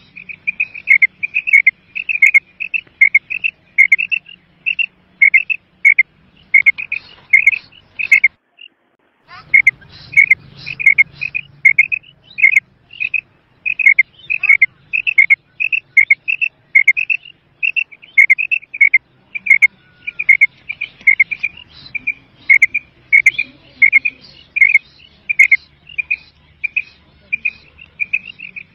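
Female quail (batair) calling: short, high, downward-slurred notes repeated quickly, often in pairs, about two to three a second, with a brief break about eight seconds in.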